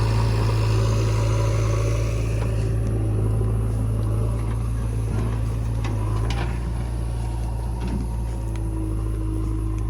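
Heavy diesel engine of the loading machinery running steadily at low revs. A harsher, higher layer of sound eases off about two and a half seconds in, and a few light knocks come around the middle.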